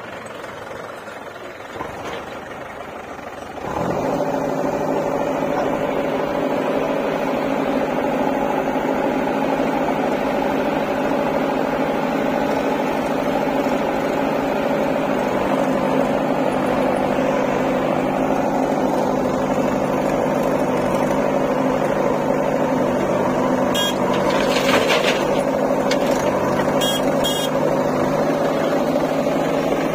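Diesel engines of a backhoe loader and a tractor running steadily. The sound steps up suddenly about four seconds in and then holds at a steady pitch, with a few sharp clicks near the end.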